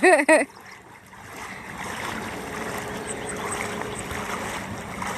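Steady wash of moving lake water, swelling in about a second in and then holding even.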